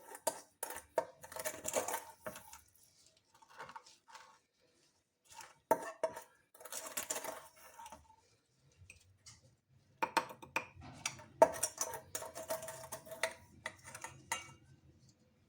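Kitchen utensils clinking and clattering against dishes in three bouts with pauses between, some strikes ringing briefly.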